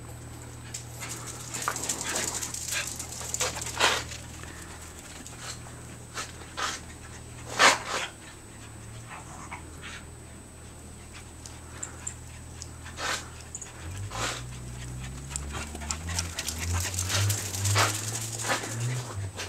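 Corgis panting as they play-chase, with many short sharp sounds scattered through, the loudest about 4 and 8 seconds in.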